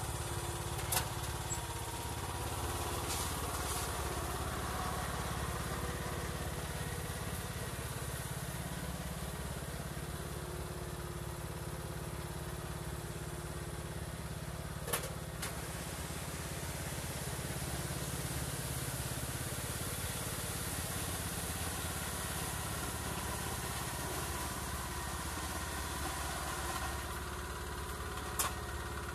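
Riding lawn tractor's engine running steadily at a low, even hum, with three short sharp clicks: about a second in, midway, and near the end.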